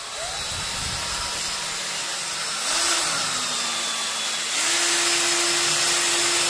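Electric drill with a paddle mixer running, stirring thick epoxy self-levelling base in a plastic bucket. The motor whine speeds up twice: the first time it falls back, and the second time it holds a louder, steady speed.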